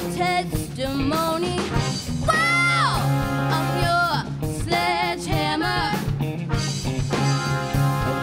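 Live rock band playing: a singer's held notes that slide down at their ends, over electric bass, electric guitar and a drum kit.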